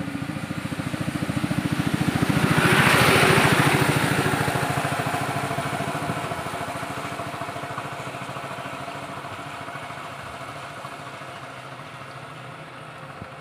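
A motor vehicle's engine passing close by with a fast, even throb, growing louder to a peak about three seconds in and then slowly fading away.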